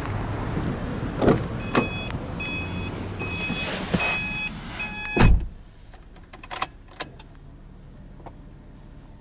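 Subaru Impreza hatchback being entered: the door-open warning chime beeps about every half second, then the driver's door shuts with a heavy thump about five seconds in. A few small clicks follow in the quieter closed cabin as the key is turned to ignition-on.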